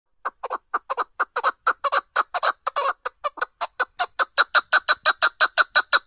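Caged chukar partridge calling: a rapid run of short clucking notes, about four or five a second, growing louder and more even toward the end.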